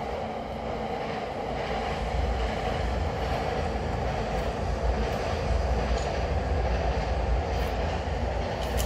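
Steady low rumble with a rushing hiss, building over the first two seconds and then holding, with a sharp click at the very end.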